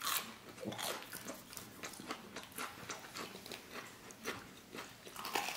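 A person chewing a mouthful of tteokbokki rice cake: faint, irregular mouth clicks of chewing, several a second.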